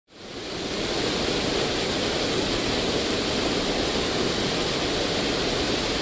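Waterfall pouring into a rock pool: a steady rushing of water that fades in over the first half-second and then holds level.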